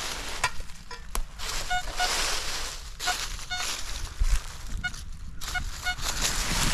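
Metal detector (XP ORX) giving short repeated beeps of one steady pitch, in small groups, as the coil passes over a buried metal target, with rustling throughout.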